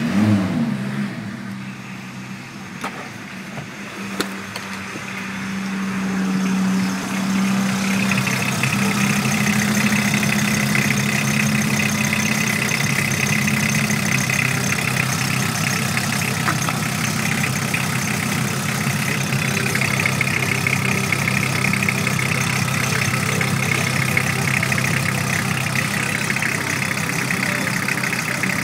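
VW T4's 2.4-litre five-cylinder AAB diesel engine catching right at the start, its pitch dropping briefly, then idling steadily. It gets louder about seven seconds in and stays steady.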